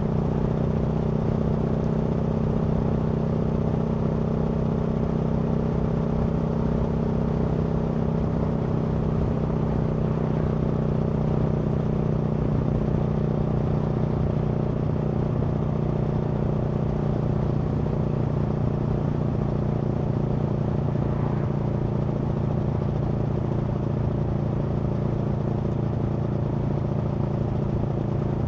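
Aprilia Tuono V4 motorcycle's V4 engine running at a steady, nearly constant pitch, the bike cruising without revving up or down.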